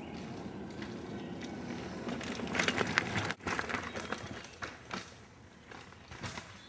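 Mountain bike rolling down a rocky trail, its tyres crunching over rock and the bike rattling, with a run of sharp knocks loudest about three seconds in, then quieter.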